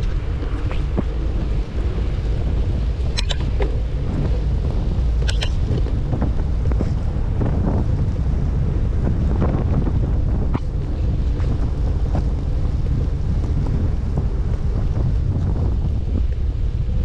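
Wind rumbling steadily on a GoPro's microphone while cycling, with two sharp clicks about three and five and a half seconds in.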